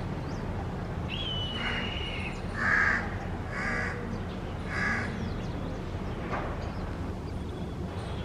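Black kite calling: a high, thin whistle held for about a second, then three short, harsh, caw-like calls about a second apart, over a steady low background rumble.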